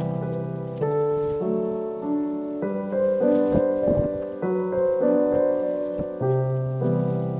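Background piano music: a slow melody over held chords, the notes changing about once a second.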